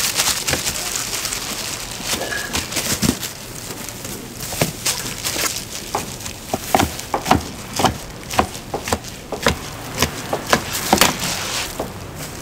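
Irregular knocks and clicks of food preparation at a gimbap stall, coming thicker in the second half, over a steady background of market bustle.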